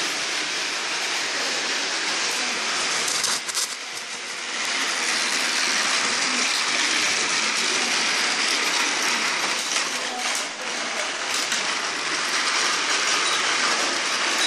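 Motorized Tomica toy train running along blue plastic track, a steady whirring rattle of its motor and wheels, dipping briefly twice.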